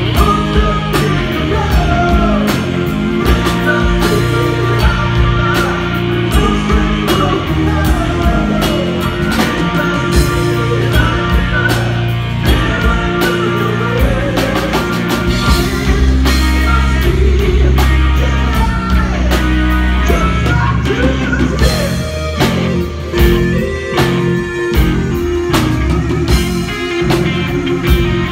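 Live rock band playing: a male lead singer over electric guitar and drum kit. Near the end the band breaks into short accented hits.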